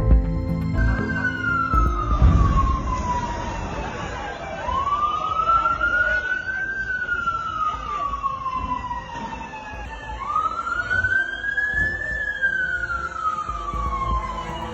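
Emergency vehicle siren on a slow wail, its pitch falling and rising again in long sweeps of a few seconds each, over a low rumble.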